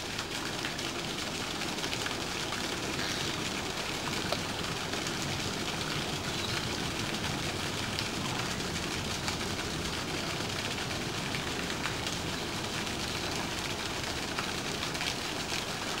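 Steady splashing of a small waterfall pouring into a pond.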